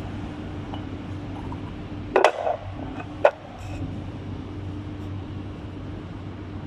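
Milling machine motor running with a steady hum, broken by two sharp knocks about a second apart, a little over two and three seconds in.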